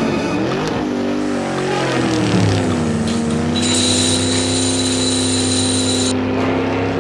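Racing-car engine sound, revving with its pitch rising and falling, then holding one steady pitch from about three seconds in. A high steady tone sounds over it for a couple of seconds in the middle.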